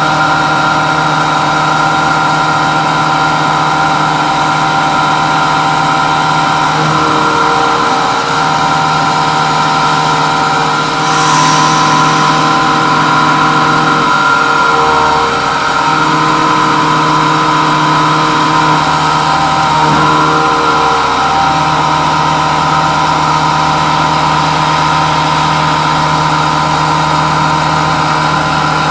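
Home-built CNC mill with its spindle running and an end mill cutting a metal block on the finishing pass of the first step down. It makes a steady, loud whine of several held tones that shifts a few times, with a brief hiss about eleven seconds in.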